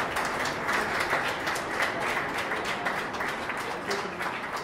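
Audience applauding: many hands clapping together in a dense patter that eases off near the end.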